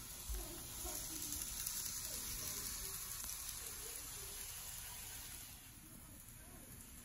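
N-gauge model train running on the track: a steady hissing rattle of its wheels on the rails and its small motor, which drops off about six seconds in.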